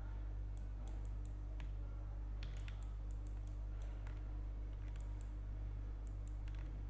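Scattered clicks from a computer mouse and keyboard over a steady low electrical hum.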